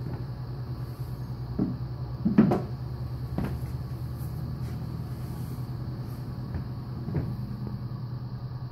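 A wooden box being handled and set down on a wooden bar counter: a few soft knocks and thumps, the loudest about two and a half seconds in, over a steady low hum.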